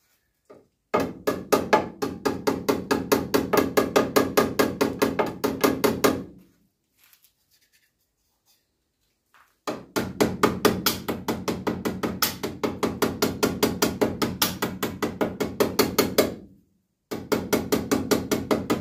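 Small hammer tapping rapidly on the sheet steel of a car-body repair panel, beating a slight bulge straight. Three runs of quick, even taps, about five a second, broken by a pause of about three seconds and a short one before the last run.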